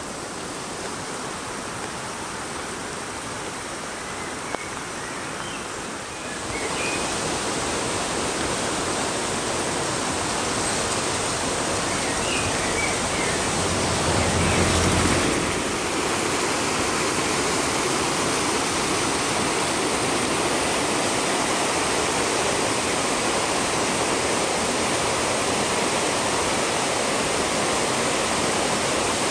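Rain-swollen, muddy stream flowing fast: at first shallow runoff across a path, then a steady loud rush of churning floodwater over rocks from about six seconds in. A brief low rumble rises and falls about halfway through.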